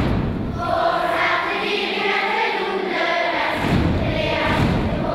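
A large group of children singing together, with a few dull low thumps near the end.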